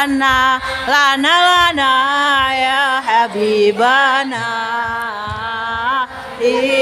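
Sholawat singing: a solo voice sings an Arabic devotional melody in long, wavering, ornamented phrases, amplified over the stage sound system.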